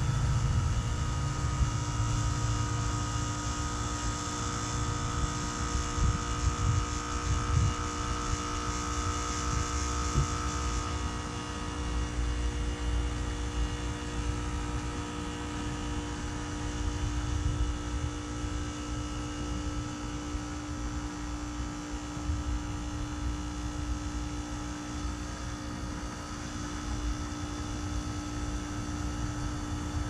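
2006 Heil 3-ton heat pump outdoor unit running during a defrost cycle: a steady compressor hum with a low rumble underneath. A high hiss drops away about eleven seconds in.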